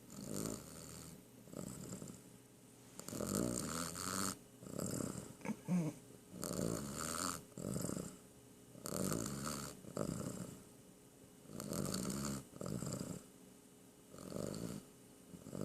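Domestic cat snoring in its sleep: about one snore a second, coming in loose pairs. About halfway through there is one short, louder whistle-like sound.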